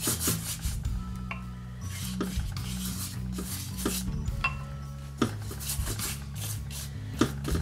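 Pastry brush stroked over sheets of filo dough, spreading beaten egg: a soft, repeated rasping brush sound with a few light taps.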